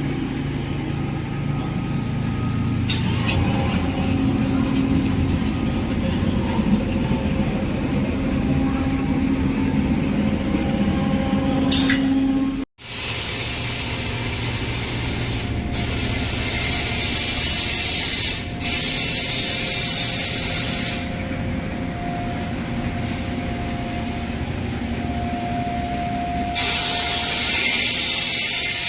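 Pillow filling machine running: a steady motor and fan hum, with several stretches of hissing air a few seconds long that start and stop abruptly.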